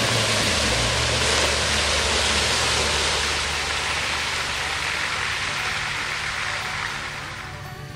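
Land Rover's engine running as the truck plows through a deep mud hole, muddy water surging and splashing around it. The splashing fades over the last couple of seconds as the truck climbs out of the water.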